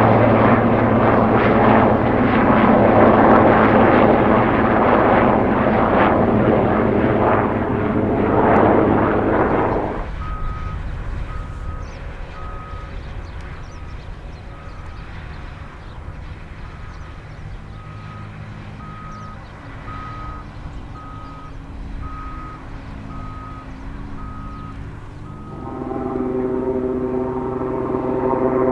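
Sikorsky S-61A helicopter running loud and close, its rotor and engine noise steady, cutting off suddenly about a third of the way in. A vehicle's reversing alarm then beeps at an even pace in a quieter background, and near the end a steady engine hum comes up.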